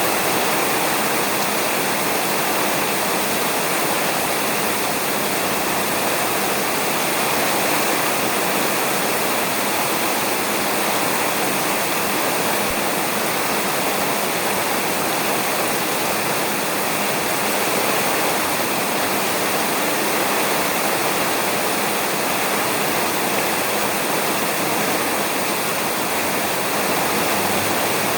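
Steady heavy rain falling on a roof: an even, unbroken hiss.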